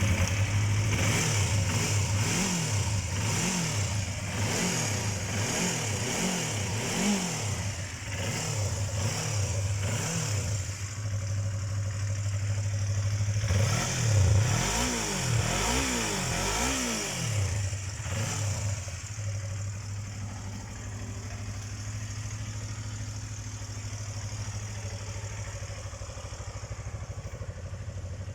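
Yamaha R25's parallel-twin engine idling with the throttle blipped: a run of about seven quick revs, a pause at idle, then about four more revs about halfway through, before it settles back to a steady idle.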